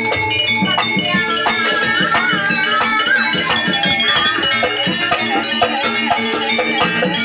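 Jaranan gamelan music played without pause: fast drum strokes over sustained struck metallophone and gong tones, with a high melody line that bends in pitch.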